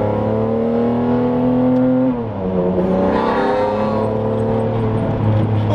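Straight-piped Ferrari Enzo V12 heard from inside the cabin under way, rising in pitch as it pulls, dropping sharply about two seconds in, then pulling on steadily.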